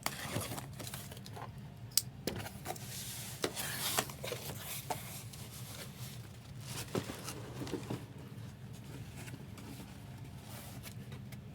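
Handling noise from trading-card packs being shuffled: scattered light taps, rubs and scrapes of foil and cardboard, over a steady low hum.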